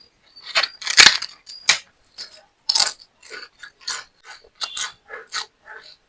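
Close-up crunching of crisp fried papad being bitten and chewed, with sharp irregular crunches about two a second.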